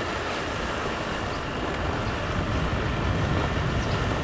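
Steady wind and road rumble from riding a bike along a paved road, a continuous low rush with no distinct engine note.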